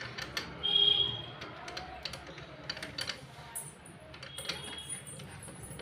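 Metal barrel bolt on a door clicking and clinking as a parakeet lifts and drops it with its beak, in scattered irregular taps. A brief high squeak about a second in is the loudest moment.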